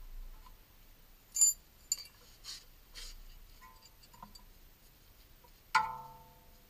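Spanner clinking against the steel of a car's front wheel hub at the ABS speed sensor: a few light metallic clinks, then near the end one sharp strike that rings on for about a second.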